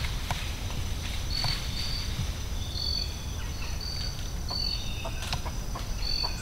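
Woodland ambience: short high chirps repeating about once a second over a steady faint high tone and a low rumble of wind.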